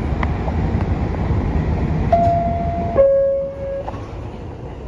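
New York City subway car's door-closing chime: two descending tones of about a second each over the steady low rumble of the train at the platform.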